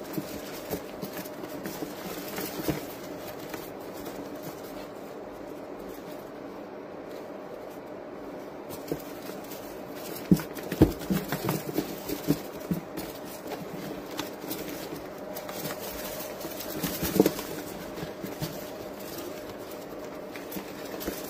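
Mice scrabbling about on wood shavings in a cardboard box: scattered small scratches, rustles and clicks, busiest about halfway through, over a steady low hum.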